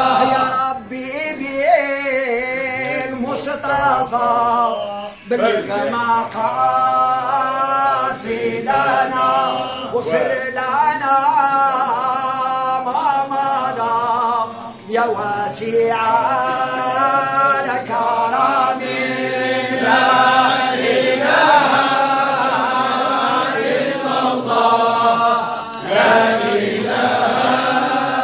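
Men's voices chanting together in unison, a Sufi devotional chant, in long wavering phrases with brief breaks between them.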